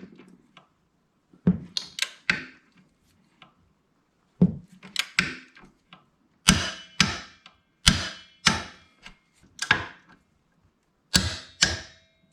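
Click-type torque wrench ratcheting as it tightens floorboard extension bolts: sharp metallic clicks with a slight ring, coming in short groups of two or three about every second or two.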